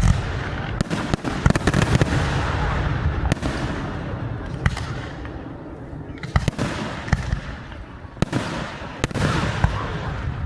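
Fireworks display: a dense barrage of aerial shell bangs and crackling over a rolling rumble, easing off about halfway through and picking up again with more sharp bangs near the end.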